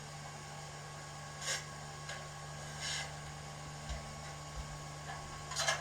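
K class model steam locomotive's DCC sound decoder playing its standing sounds through the model's small speaker: a steady hum with short hisses about every second and a half, and a few soft knocks.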